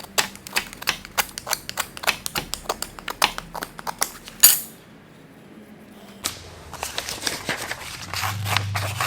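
A freshly sharpened knife edge slicing through a sheet of paper: a quick, irregular run of crisp ticks and crackles, ending in one louder click. After a short pause there is softer scratching, and a low hum starts near the end.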